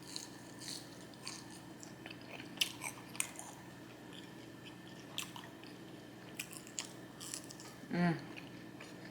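Close-miked eating sounds from a mouth working through fried chicken fingers and fries: quiet chewing with scattered short smacks and crunches, and a brief hum of the voice about eight seconds in.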